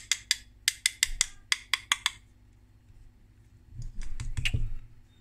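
Rapid sharp, light clicks of small metal parts, about a dozen in the first two seconds, then a short cluster of clicks and soft knocks near the end: a high-voltage selenium rectifier stick being tapped and prodded to free its discs and spring. The discs are stuck fast, welded to the case after the rectifier failed.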